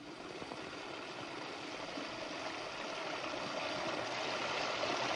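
Three jets of water falling steadily into trash barrels, a continuous splashing hiss that grows slightly louder. The jets break into drops that feed a three-stream water-drop high-voltage generator.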